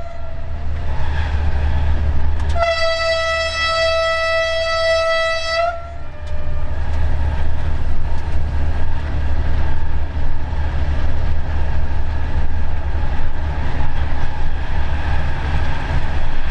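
Locomotive horn sounding a steady single-tone blast of about three seconds, starting about two and a half seconds in, with the end of an earlier blast right at the start: the warning given at a whistle board. Under it, the steady low rumble and running noise of the moving train.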